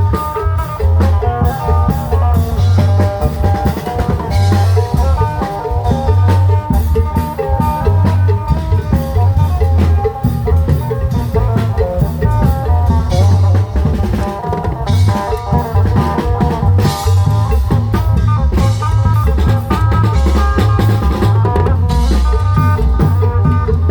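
Modernized Isan klong yao band playing: long drums and other percussion drive a fast beat under a heavy bass line and a steady melody.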